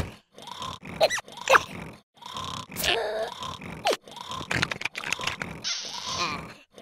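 A cartoon larva character grunting and munching, in short separate bursts of grunts, crunches and slurps with brief pauses between them.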